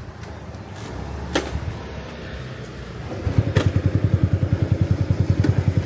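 Motorbike engine close by, idling with an even low putter of about ten beats a second that starts about three seconds in. A couple of sharp clicks come before it.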